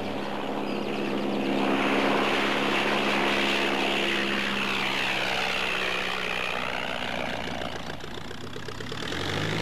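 Propeller engine of a small biplane running in flight, a steady hum that grows louder over the first couple of seconds and then slowly fades, swelling again near the end.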